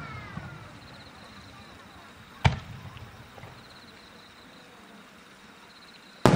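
Aerial firework shells bursting: one sharp bang about two and a half seconds in and another at the very end, each followed by a short rumbling tail, with the tail of an earlier burst fading at the start.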